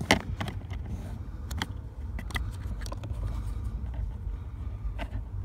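Scattered plastic clicks and scrapes of fingers pushing at the side clips of the G89 temperature sensor under a car's dashboard, the sharpest click just at the start, over a steady low rumble.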